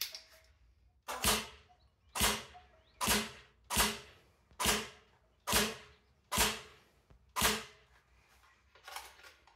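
CYMA Platinum SLR AK-105 electric airsoft rifle firing single shots, about ten at roughly one a second. Each is a sharp crack that dies away quickly, and the last one near the end is fainter.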